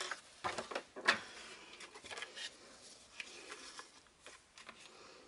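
Kraft cardstock strips handled on a cutting mat: a few short, light paper rustles and taps as the strips are picked up and shuffled, the clearest about a second in.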